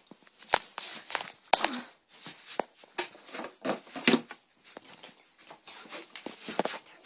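Rustling, scraping and sharp plastic clicks of toy dollhouse furniture being handled close to the microphone, with the loudest knocks about half a second and a second and a half in.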